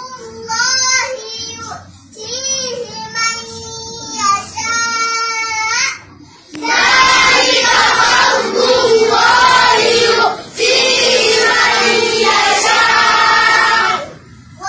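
A child's voice chanting Quran recitation solo, in long held melodic notes. About six and a half seconds in, many children's voices take up the chant together, much louder, for about seven seconds, then drop out.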